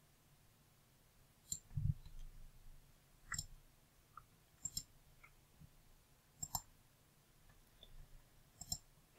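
Faint computer mouse button clicks: about five sharp clicks a second or two apart, some in quick pairs, with a soft low thump about two seconds in.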